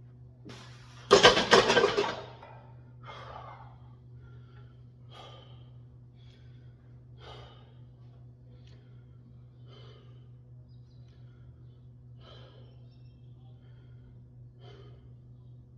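Heavy breathing after exertion, with a short breathy exhale about every two seconds. About a second in, a brief loud clattery burst with sharp clicks. A steady low hum lies under it all.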